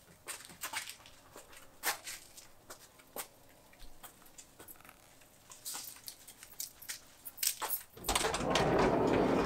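Light scattered clicks and scuffs of footsteps and handling on a concrete driveway, then about eight seconds in a rolling rumble as a Volkswagen bus's sliding side door is slid open.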